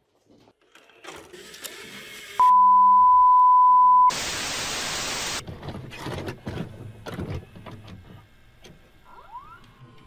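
Retro VCR and television sound effects. Clicks and rustling come first, then a steady beep of about a second and a half, cut off by a loud burst of static hiss. A run of mechanical clicks and clunks from the tape deck follows.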